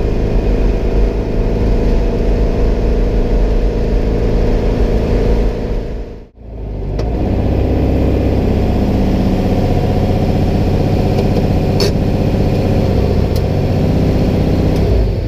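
Turbocharged engine of a 1956 VW Beetle heard from inside the cabin, running while the car is driven, then, after a brief drop-out about six seconds in, idling steadily.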